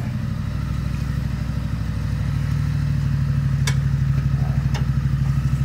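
Harley-Davidson Road Glide's V-twin engine idling with an even pulsing beat, a little stronger from about two seconds in. Two brief clicks about a second apart in the middle.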